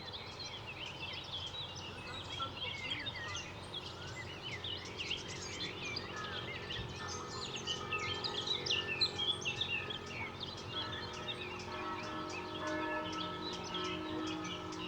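Many small birds chirping and twittering over a steady low hum of the city, with distant church bells ringing in the background. The bells come in faintly about halfway through and grow fuller near the end.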